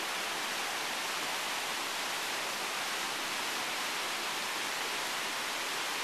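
Steady rushing noise with no change in level or pitch.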